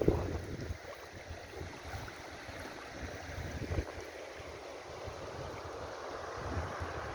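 Wind gusting over the microphone in low rumbles, over a steady rush of moving river water around the boat; a single thump right at the start.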